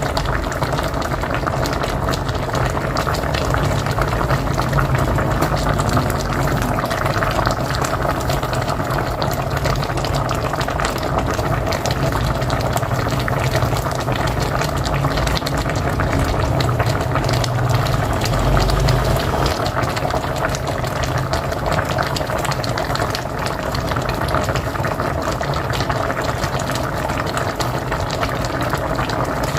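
A pot of mocotó (beef feet) boiling on a wood-fired stove: a steady, dense bubbling.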